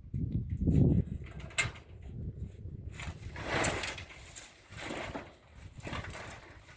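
Tin roofing sheets scraping and sliding on the roof in uneven strokes, with a sharp knock about a second and a half in.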